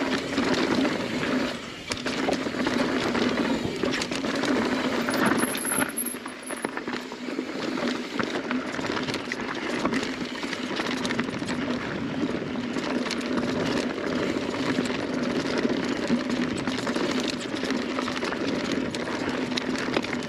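Mountain bike descending a dirt singletrack at speed: knobby tyres rolling over dirt, roots and rocks, with the bike rattling and clicking over the bumps.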